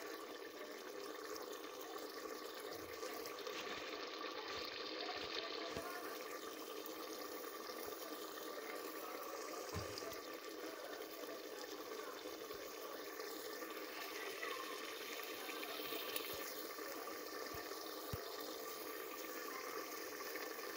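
Tripe stew simmering in an open stainless pressure cooker on the stove: a steady bubbling hiss that does not change.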